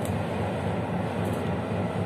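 Passenger train running along the track, heard from the rear of the train: a steady rumble of wheels on rails, with faint high ticks about halfway through.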